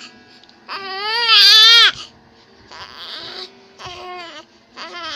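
Infant crying: one loud wail about a second in, followed by three shorter, softer whimpering cries.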